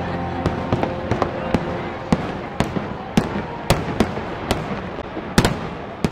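Fireworks display: aerial shells bursting in sharp, irregular bangs, roughly two a second, over a steady background noise, fading out at the very end.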